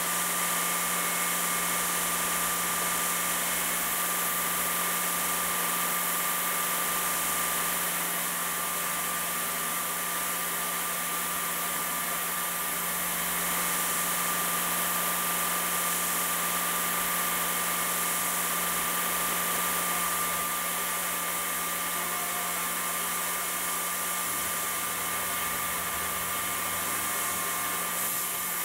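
Tormach CNC mill spindle running at high speed, a small end mill cutting aluminium: a steady high whine over a hiss, unbroken throughout.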